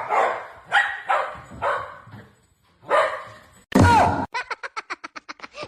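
A dog barking, four spaced barks and then a louder one about two-thirds of the way in, followed by a fast, even run of short pulses, about ten a second.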